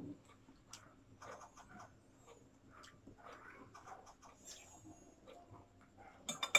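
Quiet eating sounds: soft chewing and mouth noises as noodles are tasted, with small scratchy clicks. Near the end, a couple of sharper clinks of a fork against a plate.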